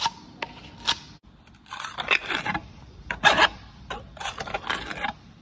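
Steel hand scraper scraping rust and caked grime off the geared steel ring of an excavator swing bearing, in a string of short, rough strokes with a few longer ones in the middle.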